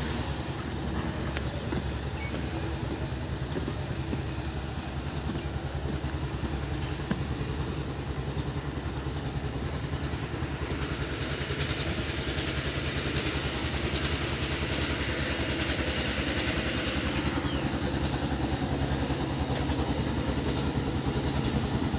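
Motorcycle engine running steadily with a fast, even beat, getting a little louder about halfway through.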